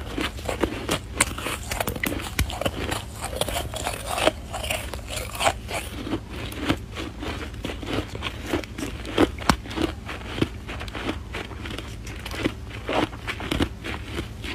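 Packed snow being bitten and chewed close to the microphone: irregular crunches and crackles, several a second.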